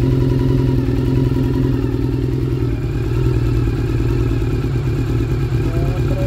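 Liquid-cooled motorcycle engine idling steadily.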